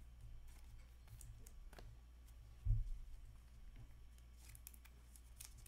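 Upper Deck Black Diamond hockey cards being handled and slid against each other, giving faint rustling and light clicks, with a low thump a little under three seconds in. A steady low hum runs underneath.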